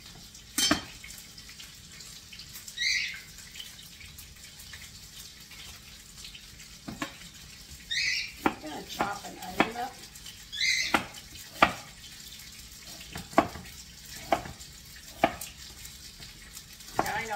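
Chef's knife cutting through an onion on a wooden cutting board: about ten sharp, irregular knocks of the blade on the board. Three short high chirps sound in among the cuts.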